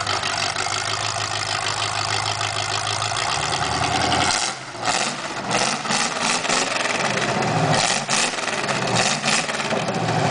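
Demolition-derby car's engine running through open 4-into-1 header stacks that exit through the hood: a steady idle, then from about halfway uneven and shifting with sharp cracks, settling back to a steady idle near the end.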